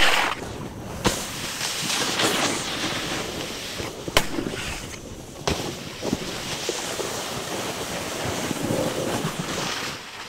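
Snowboard sliding and scraping over snow, with a few sharp knocks as the board strikes the rail and the snow.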